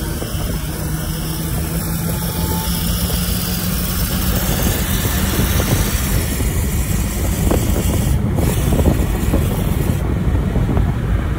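Honda Civic FB2 accelerating hard in a drag race, heard from inside its cabin: engine noise under a dense road and wind roar that builds steadily louder.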